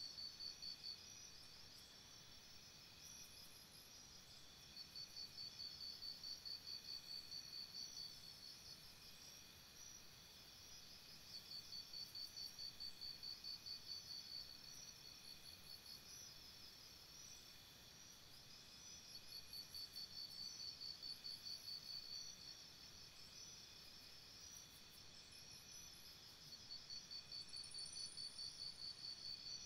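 Faint chorus of forest insects, a steady high trilling. One of them swells into a bout of rapid pulses about three seconds long, roughly every seven to eight seconds.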